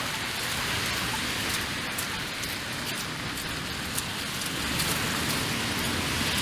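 Light freezing rain falling on a wet, slushy street: a steady hiss with scattered small ticks of drops.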